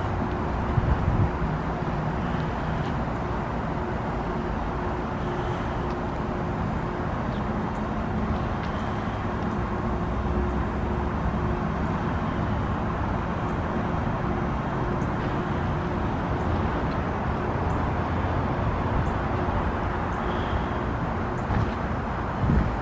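2023 RunTru heat pump outdoor unit running through a defrost cycle: a steady hum over an even rushing noise.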